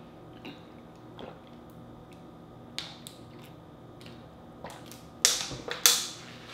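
Faint sips and small clicks while drinking from a thin plastic water bottle, then the bottle crackles loudly twice about five seconds in as it comes away from the mouth.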